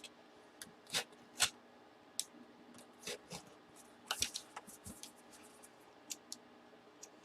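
Packaging being handled and opened: a scatter of short scrapes, crinkles and light clicks at irregular intervals, the loudest a little after one second in and about four seconds in.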